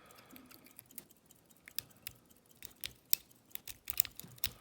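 Metal snake rake scraping and clicking against the wafers inside a small Corbin cabinet wafer lock while it is raked under tension: irregular sharp clicks, few at first and coming thicker from about halfway.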